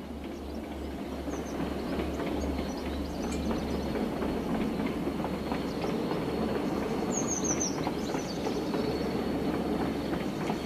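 Diesel train approaching along the line, its rumble growing steadily louder, with a thin steady high whine over it.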